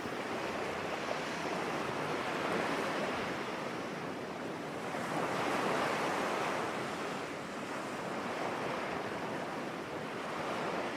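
Ocean waves washing ashore as a background sound effect: a steady rush of surf that swells and ebbs every few seconds.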